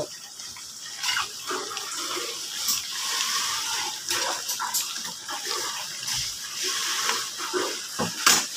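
Chicken pieces being stirred in boiling adobo sauce in a metal pan: wet sloshing and bubbling, with several sharp knocks and scrapes of the utensil against the pan.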